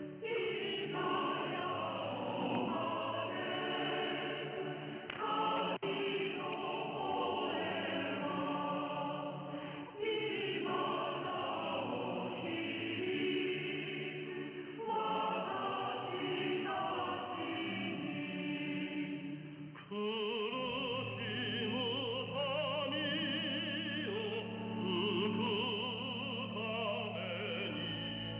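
Choir singing slow sacred music, received off a shortwave AM broadcast at 5850 kHz, so the sound is narrow and muffled with faint static hiss above it. The phrases break about every five seconds. From about two-thirds of the way through, voices with vibrato sing over held low notes.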